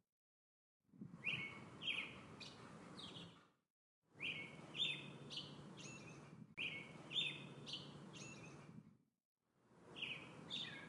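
Songbird singing short phrases of quick chirping notes, repeated four times with brief complete silences between them, over a low steady background noise.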